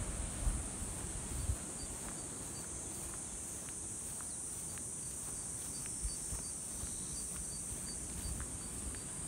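Insects calling in a steady, continuous high-pitched hiss, with a faint short pip repeating underneath. A low rumble sounds in the first second and a half, then stops.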